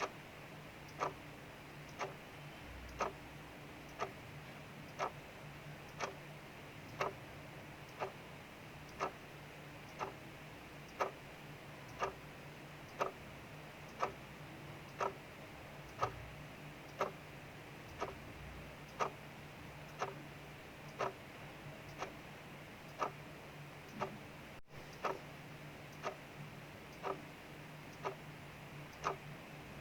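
Clock ticking steadily, about once a second, over a soft, even hiss of rain outside.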